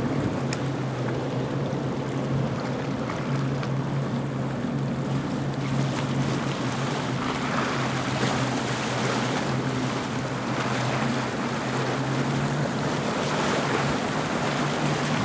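Motorboat running at speed offshore: a steady low engine drone under the wash of the hull through the waves and wind noise on the microphone.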